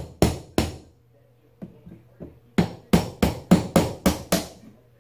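Claw hammer striking a metal punch set against a wooden chair seat, knocking the chair legs out of their holes. Three hard blows, a short lull with a few light taps, then a quick run of about eight blows at roughly four a second.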